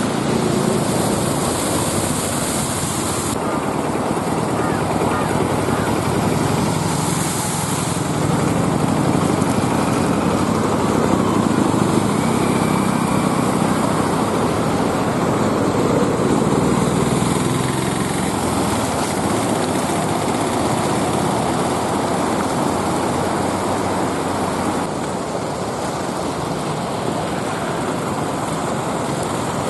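Auto rickshaw engines running as the three-wheelers drive through flood water on the road, with water splashing and hissing around the wheels. The hiss of spray is strongest in the first few seconds and again briefly a few seconds later.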